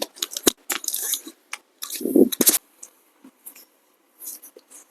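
Rustling and a quick run of small clicks and cracks from hands and body being moved during a chiropractic adjustment, with a duller, lower thump about two seconds in. The clicks thin out and grow quieter in the second half.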